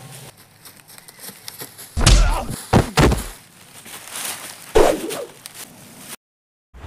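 Heavy fight-scene thumps of blows and a body hitting the ground: three in quick succession about two seconds in, then another near five seconds. The sound cuts out briefly just before the end.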